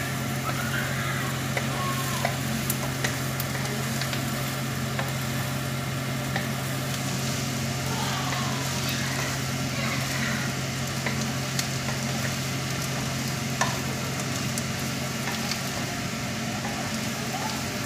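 A wooden spatula stirring and tossing fried chicken pieces with onions and red chilli paste in a sizzling non-stick pan, with scattered small scrapes and taps. A steady low hum runs underneath.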